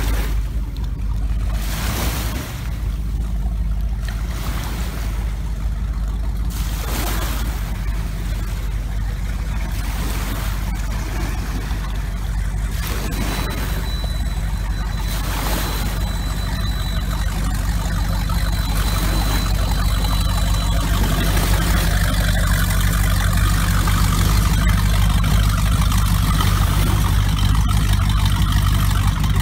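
The 2000 Mach One 314's engine runs at low speed as the boat moves off across the water. Its steady low hum grows stronger and a little louder in the second half.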